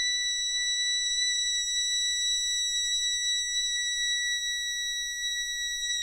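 Suona sounding one long, very high note, held steady in pitch without a break.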